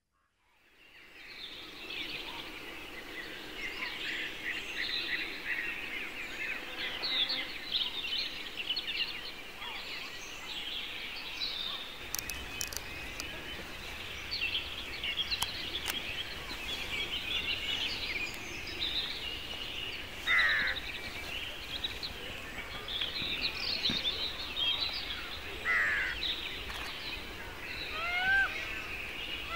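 Many birds singing and calling at once in the forest: a dense chorus of quick chirps and trills, with a few louder down-sweeping calls about two-thirds of the way through. It fades in at the start.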